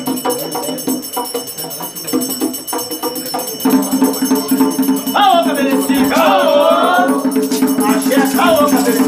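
Batuque ritual music: rhythmic percussion strokes, joined a little before the middle by a steady low sustained tone, then voices singing a chant from about five seconds in.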